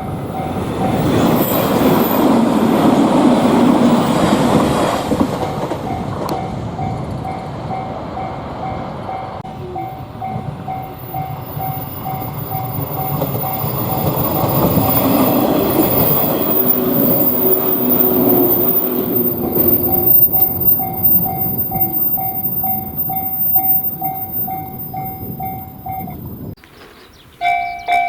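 Japanese railway level-crossing warning bell ringing in a steady repeating 'kan-kan' while an electric train rumbles past on the rails. The train noise is loudest in the first few seconds and again past the middle. Near the end the sound drops out briefly and a louder crossing bell at a different pitch starts ringing.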